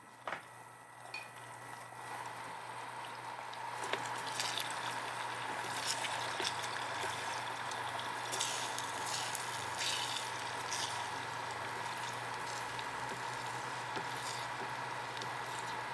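Eggs scrambling in a hot frying pan: a steady sizzle that swells over the first few seconds and then holds, with scattered sharp crackles and a few light clicks at the start.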